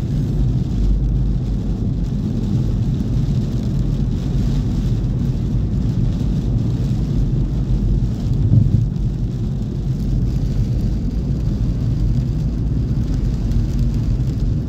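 Steady low rumble of a car driving on a wet road, heard inside the cabin: tyre and road noise mixed with the engine. A brief louder thump about eight and a half seconds in.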